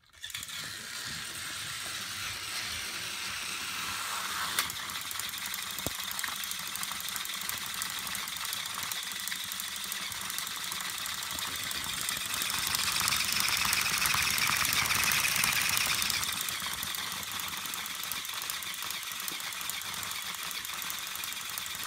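Battery-powered TOMY Trackmaster toy train engines running on plastic track, their small motors and gearboxes whirring steadily as the two engines push head to head against each other. The whirring grows louder for a few seconds midway, with a single click early on.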